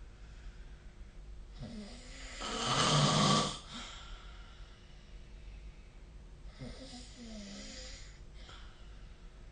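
A sleeping person snoring. One loud snore swells from about one and a half seconds in and cuts off sharply near four seconds, and a softer breath with a wavering tone follows around seven seconds in.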